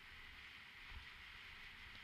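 Faint, muffled riding noise of a mountain bike descent picked up by a helmet-mounted action camera: a steady hiss with an uneven low rumble from the trail, and a small knock about a second in.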